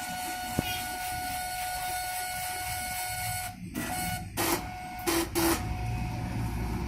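Axis drive motor of a joystick-controlled CNC drilling machine moving the carriage, giving a steady high whine. The whine stops about three and a half seconds in, comes back in short spurts between a few brief noisy bursts, then runs steady again near the end.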